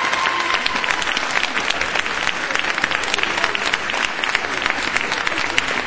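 Audience applauding in a sports hall at the end of a group routine, with the music's last held note dying away about a second in.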